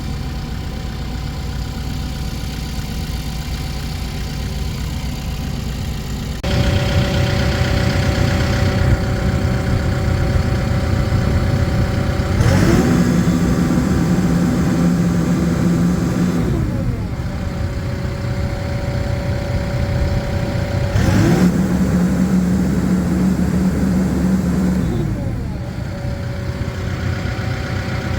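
Case 580N backhoe's diesel engine running: it idles, steps up in speed about six seconds in, then twice rises in pitch for a few seconds and falls back.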